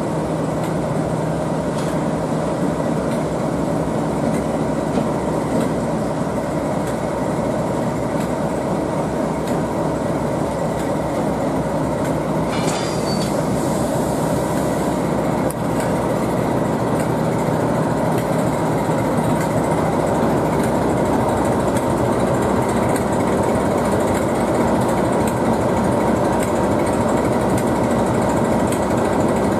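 Class 37 diesel locomotive's English Electric V12 engine running steadily with a low hum as the locomotive and test coach move slowly past. A brief sharp high sound comes about twelve seconds in.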